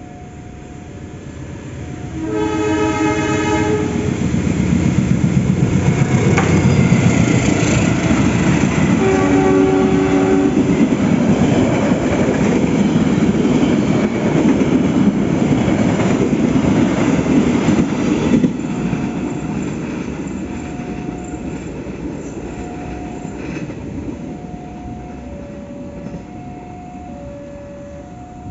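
A passenger train double-headed by two diesel locomotives sounds its multi-tone horn twice as it approaches, about two seconds in and again near ten seconds. It then rushes past close by with engine and wheel clatter, and the noise fades as it pulls away. In the latter part a level-crossing warning beeps steadily in two alternating tones.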